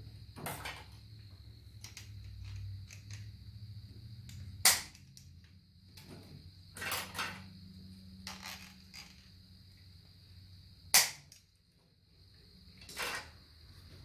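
A hand cutting tool working through copper-jacketed coax cable: short scraping and creaking strokes, with two sharp, loud snaps about six seconds apart.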